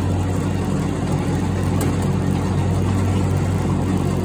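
Riding lawn mower's engine running steadily at work speed, a constant low hum while it mows.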